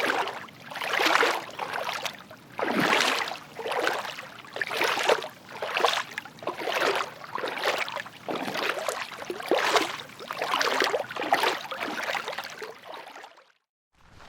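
Footsteps wading through water: slow steps, about one a second, each a drawn-out splashing swish. The recording cuts off near the end.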